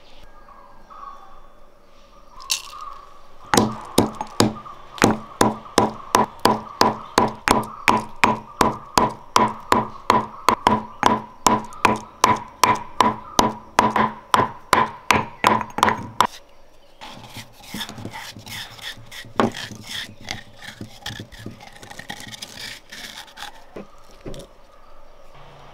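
Stone pestle pounding cardamom pods in a stone mortar, a steady run of knocks at about three a second, each with a short ringing tone, which stops abruptly. Quieter scraping and rubbing follow as the crushed cardamom is worked and tipped out of the mortar.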